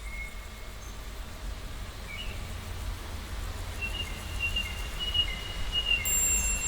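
Birds calling in thin, high whistled notes, short ones early and one long held whistle with small pitch steps in the second half, over a steady low rumble.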